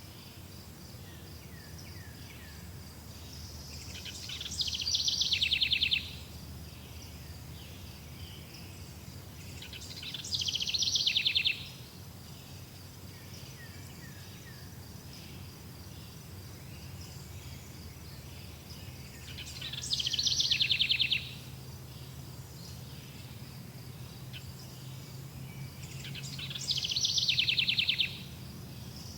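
Forest ambience: a steady, high insect trilling with faint bird chirps over a low hum. Four times, a loud, rapid, buzzy trill rises and lasts one to two seconds.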